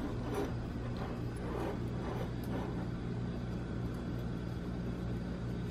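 A steady low hum, with a few faint light clicks and taps as a small metal alcohol burner and its wick top are handled.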